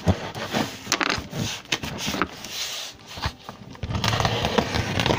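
Knife cutting through packing tape and cardboard on a shipping box: irregular scraping and scratching with small clicks, dropping off for a second or so near the middle before picking up again.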